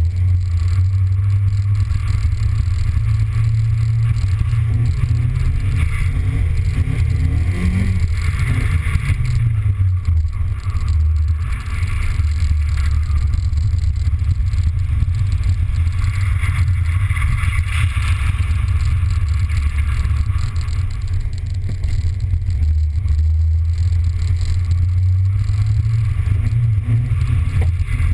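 Car engine running and revving while the car slides around on wet pavement, heard from a camera mounted on the hood. The revs rise and fall, with a hiss from the tyres on the wet surface swelling twice.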